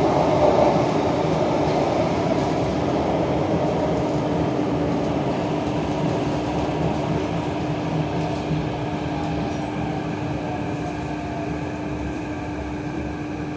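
Interior running noise of a Kawasaki/CRRC Qingdao Sifang CT251 metro train in a tunnel, slowing as it pulls into a station. The rumble of wheels on rail fades gradually, and a steady hum comes in about a third of the way through.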